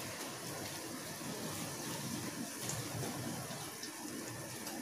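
Potato-and-onion pakoras in wheat-flour batter deep-frying in a wok of hot oil: a steady sizzle of bubbling oil.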